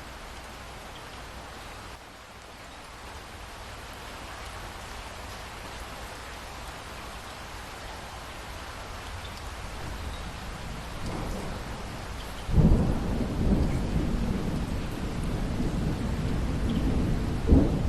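Steady rain hiss that slowly grows; about twelve seconds in a loud thunderclap breaks in and rolls on as a low rumble, with another sharp crack of thunder near the end.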